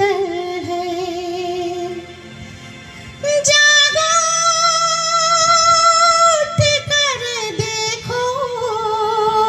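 A woman singing a slow Hindi film song solo, holding long notes with vibrato; a louder, higher note comes in after about three seconds and is held for about three seconds.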